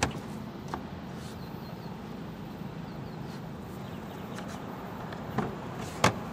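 Light clicks and knocks from plastic bumper trim being handled: one sharp click at the start, a faint one about a second in, and two knocks near the end, the last the loudest, over a steady low background hum.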